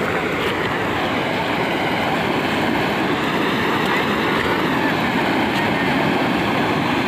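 Muddy floodwater pouring over a low concrete weir and churning into white water: a loud, steady rush with no letup.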